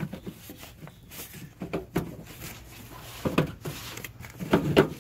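Handling noise from fitting the foil-wrapped air intake hose in a truck's engine bay: rustling with scattered sharp clicks and light knocks. The loudest come about three seconds in and just before the end.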